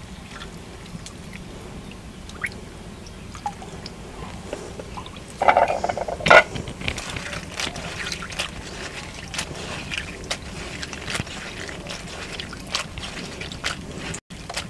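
Water ladled into a clay bowl of dried chela fish, with a louder splash partway through, then hands rubbing and washing the fish in the water, giving many small clicks and splashes.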